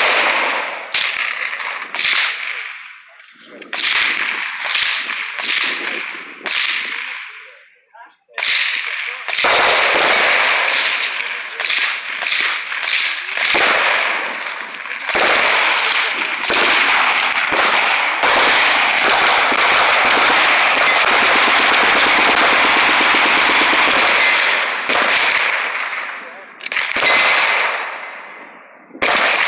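Gunfire from several guns on a shooting range. There are separate sharp shots at first, then many overlapping, echoing shots in quick succession through most of the middle, thinning out near the end.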